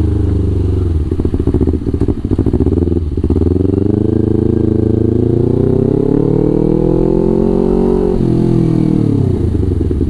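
Kawasaki Ninja 250 FI parallel-twin running through a Villan New ZX1 aftermarket exhaust while being ridden. The engine note climbs steadily for several seconds, drops off about eight seconds in, and settles to a low pulsing beat near the end.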